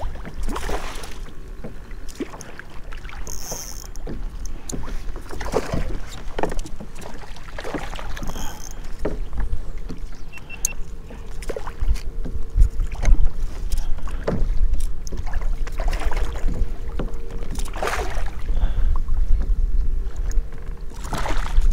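Wind buffeting the microphone with water splashing and knocks of rod and gear handling as a hooked fish is fought up to the kayak. A faint steady hum comes in about halfway through.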